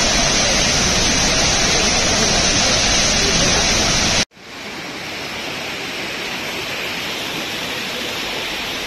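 Water from a burst supply pipeline gushing out in a loud, steady rush. About four seconds in it cuts off abruptly and gives way to a quieter rush of floodwater running down a street.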